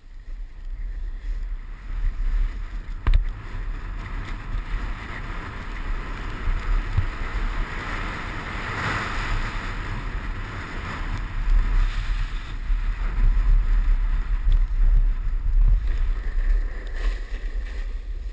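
Wind buffeting an action camera's microphone with a low rumble as the rider goes downhill, over the hiss of edges scraping across packed snow, which swells midway. One sharp knock about three seconds in.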